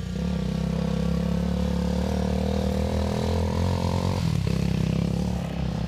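Motorcycle engine running steadily, with a brief dip about four seconds in before it carries on.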